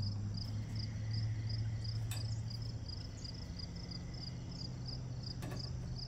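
Crickets chirping in a steady, even rhythm, about three chirps a second, over a low hum, with a couple of faint clicks.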